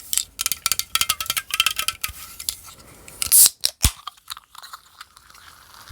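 Freshly poured Diet Pepsi fizzing close to the microphone: a dense run of tiny crackling clicks, with a brief louder hiss about three and a half seconds in.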